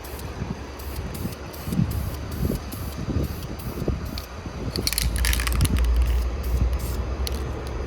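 Aerosol spray paint can hissing in a short burst about five seconds in, with wind buffeting the microphone in a low rumble throughout.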